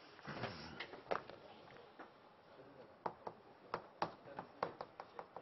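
A board eraser rubbed across a chalkboard, then chalk writing on the board: a run of sharp taps and clicks, about three a second, from about three seconds in.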